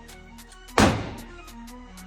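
A 9mm pistol fires, with a loud, sharp crack about a second in that rings on briefly, over background music with a steady melody. Another crack comes just at the end.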